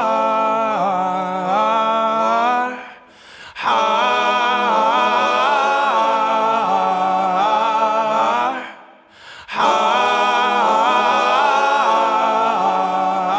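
Background music led by a wordless, hummed vocal melody, with two short breaks about three and nine seconds in.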